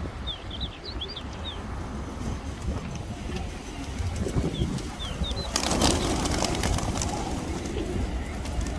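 A large flock of feral pigeons, with short high chirps early on. About halfway through comes a sudden loud rush of many wings flapping at once as a crowd of pigeons takes off, and it fades over the next couple of seconds.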